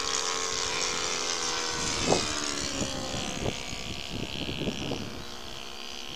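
Several RC model airplanes flying overhead, their motors and propellers whining steadily at different pitches that drift slowly. Short low bumps come in from about two seconds in.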